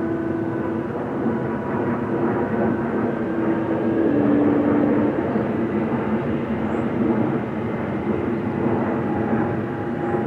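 Jet engines of a Boeing 777-300 airliner running as it taxis slowly: a steady rushing noise with several steady whining tones, one of which dips slightly in pitch about halfway through.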